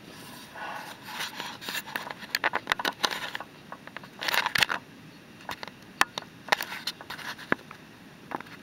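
Rustling and crinkling of a bag or wrapping being handled, with scraping and a few sharp clicks.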